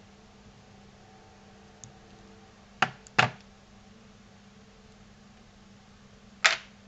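Sharp clicks of small metal hand tools, wire cutters and tweezers, handled on a wooden workbench: two close together about three seconds in and one more near the end.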